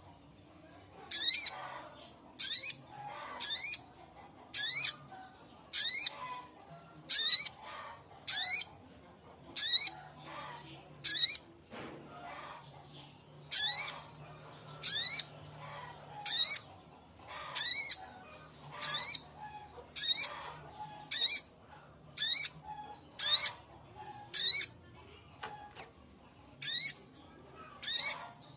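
A male sogok ontong (sogon) bird calling to a female: short, high-pitched calls repeated about once a second, some twenty in all, with a pause of about two seconds midway.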